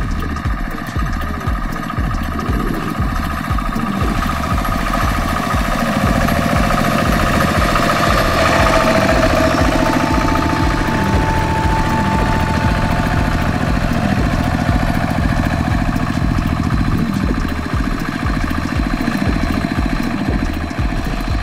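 Single-cylinder diesel engine of a two-wheel walking tractor running steadily under load with a regular low chugging, as it pushes a straw-gathering rake through cut rice straw.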